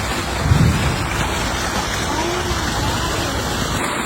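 Strong wind rushing over the microphone in a steady roar, with a low buffeting thump about half a second in.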